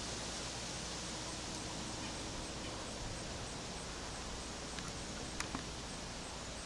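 Steady, low outdoor background hiss with no clear source, broken by a few faint clicks about five seconds in.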